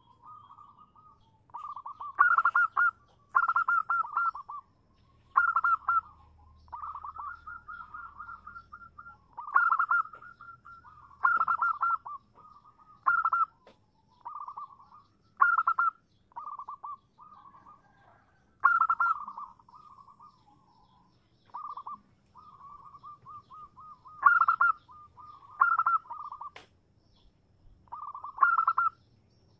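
Zebra dove (perkutut) calling: a series of short rolling, purring coos, with loud bursts every one to two seconds and softer trilled phrases between them. This is offered as a female's call used to lure males into answering.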